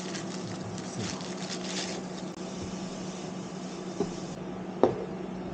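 Rustling and crackling as freshly rinsed sprouts are tipped from a bag into a pan and turned. Then a utensil knocks twice against the pan, about four and five seconds in, the second knock the louder. A steady low hum runs underneath.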